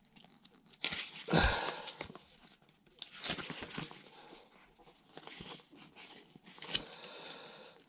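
Paper rustling and light handling clicks in several short bursts as an instruction leaflet is leafed through. The loudest burst comes about a second in.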